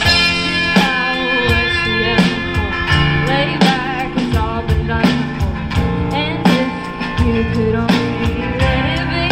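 Live band playing: electric and acoustic guitars over keyboard, bass and a drum kit, with steady drum hits throughout.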